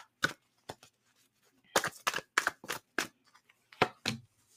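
Oracle cards being shuffled and handled: an irregular run of sharp clicks and slaps, bunched together in the second half.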